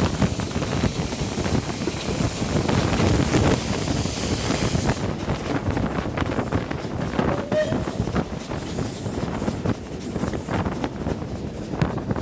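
Steam-hauled train hauled by Bulleid Pacific 34092 City of Wells running along the line, heard from an open carriage window: steady wheel and rail noise with many knocks, and wind buffeting the microphone. The high hiss of the wind drops away about five seconds in.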